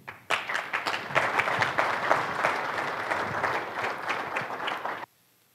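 Audience applauding, a dense patter of many hands clapping that starts just after the start and cuts off abruptly about five seconds in.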